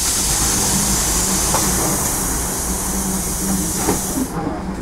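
Compressed air hissing out of the pneumatic system of a SOR EBN 9.5 electric bus, a steady hiss that cuts off sharply near the end, over a low steady hum.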